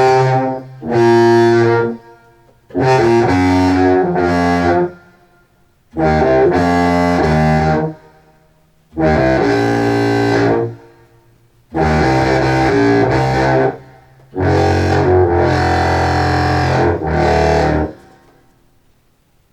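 Contrabass clarinet played through an effects pedalboard into a Walrus R1 reverb on a short 'air' preset, heard through studio speakers: a series of short, rich held phrases, each dying away quickly into a brief gap, the last ending about 18 seconds in.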